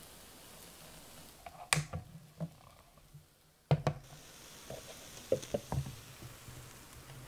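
Sharp plastic knocks and taps from lowering and closing the lid of a Recolte Smile Baker doughnut maker: one about two seconds in, the loudest about halfway through, then a quick run of smaller taps, over a faint low hum.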